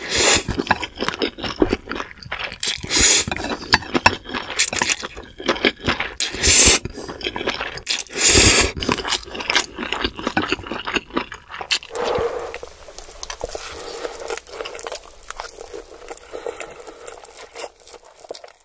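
Close-miked noodle eating: Indomie goreng slurped through the lips in several long, loud slurps, between them wet chewing and crunching. After about twelve seconds the eating sounds stop and a quieter, even sound with a faint held tone takes over.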